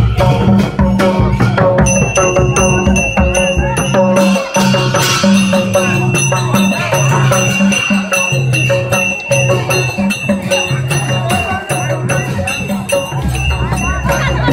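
Live traditional Newar procession music: brass cymbals clashing and ringing over a drum beat that alternates between two pitches, with many sharp clacks in quick succession.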